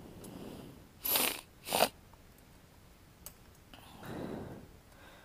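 Two short bursts of hand-tool noise about a second in, from a wrench working the rear-axle chain adjuster bolt on a motorcycle swingarm, with fainter rustling around them.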